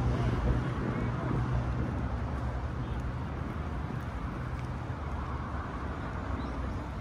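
Street traffic: a motor vehicle's engine hum passing and slowly fading away, over a steady background of city noise.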